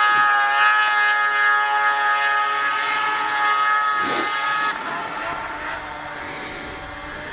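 Yamaha snowmobile engine running at high, steady revs, a pitched whine that grows quieter about two-thirds of the way through as the machine moves off across the snow.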